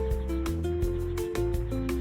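Background music: sustained melody notes over bass and a steady beat.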